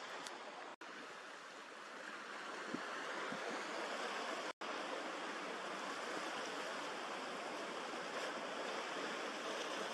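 Steady rushing of wind and choppy sea water, with the sound cutting out for an instant twice.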